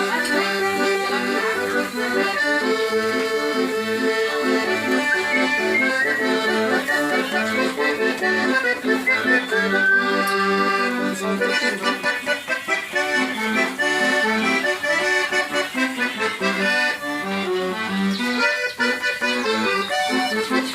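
Accordion played live: a waltz melody over a steady alternating bass-and-chord accompaniment.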